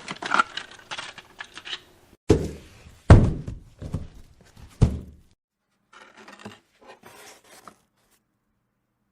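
Three heavy thuds about two, three and five seconds in, amid clicking and rustling: a large boxed refrigerator and its packaging being handled during unboxing.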